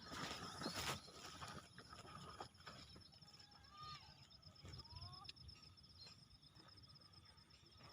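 Faint rural outdoor ambience: a steady, rapidly pulsing high trill typical of an insect, with a few scattered bird calls in the middle.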